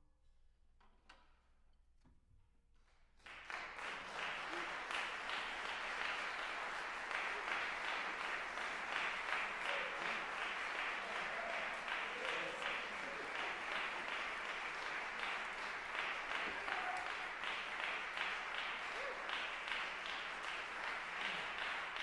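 Audience applause: a few seconds of hush after the piece ends, then clapping breaks out suddenly about three seconds in and carries on steadily.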